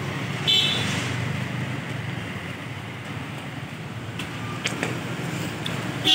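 Steady traffic noise of cars and motorbikes passing on a busy street, with a short high beep about half a second in and a vehicle horn starting right at the end.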